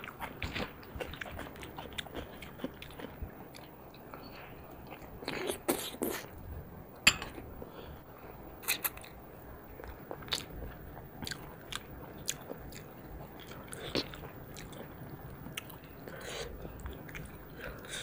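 Close-up eating sounds of two people eating rice and chicken curry by hand: wet chewing, lip smacks and crunching bites, with irregular sharp clicks, a few of them louder.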